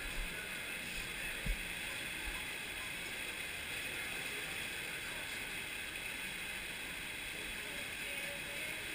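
Steady rush of water gushing out of a water slide's tube and churning in the splash-down runout channel, with a brief low thump about a second and a half in.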